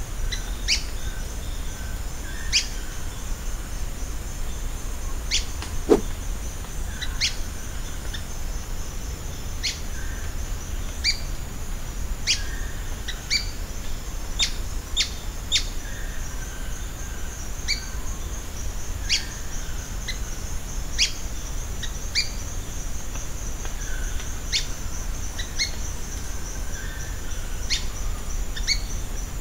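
Ochre-bellied flycatcher (Mionectes oleagineus) giving short, sharp, high call notes, one every second or two, over a steady high insect buzz. About six seconds in comes a single low falling swoop.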